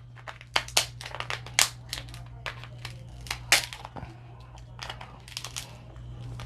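Dungeness crab shell being cracked and broken apart to get at the meat: a run of irregular sharp cracks and crackles over a low steady hum.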